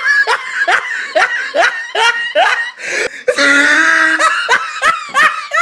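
A person laughing in a run of short, rising, high-pitched bursts, about three a second. About three seconds in there is a longer held sound, then more quick bursts of laughter.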